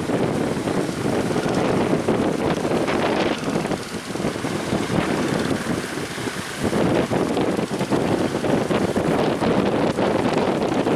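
Strong wind buffeting the microphone in gusts, easing for a couple of seconds about four seconds in and then picking up again.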